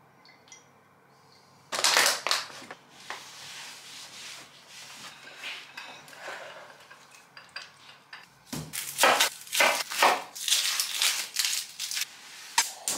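Dry onion skin crackling and rustling as it is peeled off by hand, in dense loud bursts over the last few seconds. From about two seconds in there is a sudden loud crinkle, then lighter crinkling and handling noise.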